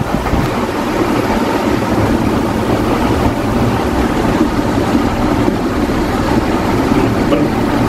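Steady, loud rumbling background noise with a hiss, with no distinct knocks or clicks.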